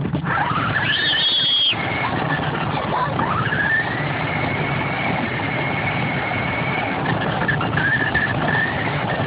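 Radio-controlled car running, its motor whine gliding up and down with speed over a steady rushing noise.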